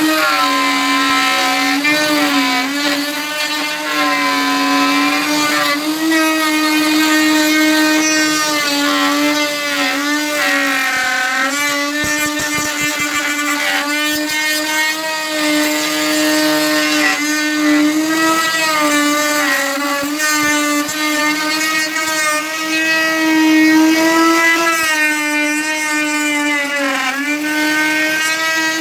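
Woodworking power tool's motor running continuously with a steady pitched hum, its pitch wavering slightly up and down.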